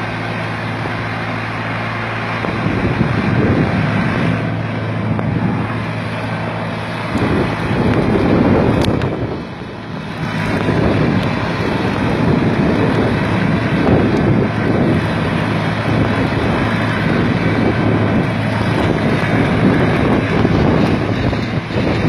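Small diesel tractor engine running steadily while pulling a mouldboard plough through soil. From a few seconds in, wind buffets the microphone over the engine.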